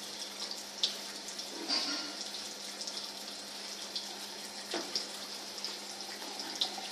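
Water running from a tap into a bathroom sink as a wet Yorkshire terrier puppy is washed in it, with a few brief knocks.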